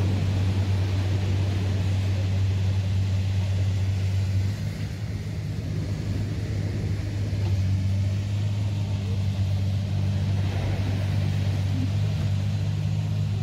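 Tracked excavator's diesel engine running steadily under load as it drags a beached boat on a strop, dropping briefly about four to five seconds in, over the wash of breaking surf.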